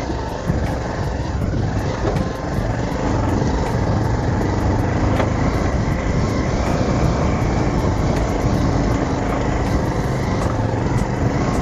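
Bajaj Pulsar 220 motorcycle engine running steadily while riding, with road and wind noise.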